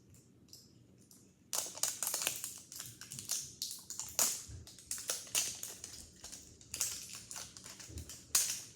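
Plastic toy packaging being handled and crinkled: a fast, irregular run of crackles and clicks that starts about a second and a half in.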